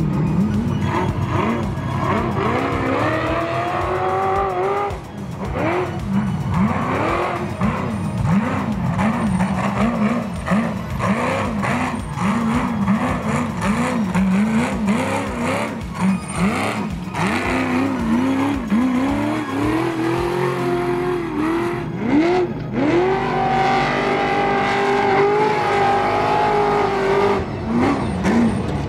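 Ultra 4 race car's engine revving up and down in repeated throttle bursts while crawling over rocks. The revs are held high and fairly steady for a few seconds near the end.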